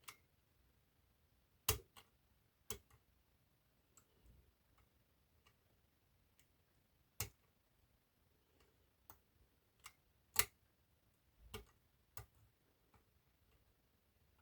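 Sparse, irregular sharp clicks of picking tools working the levers inside an eight-lever lever lock. About a dozen clicks, with two louder ones near the start and about two-thirds of the way through.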